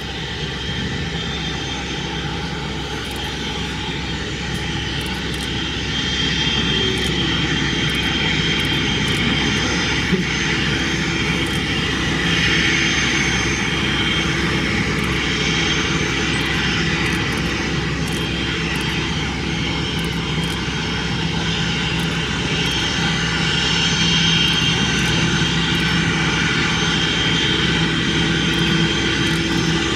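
Boeing 737-800's CFM56 jet engines at taxi power, a steady whine that grows louder about six seconds in as the aircraft taxis closer.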